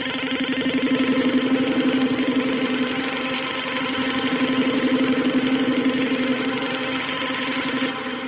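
Harsh, heavily distorted cybergrind music: a dense wall of noise over a steady low buzzing drone with a fast rattling pulse, starting to fade out near the end.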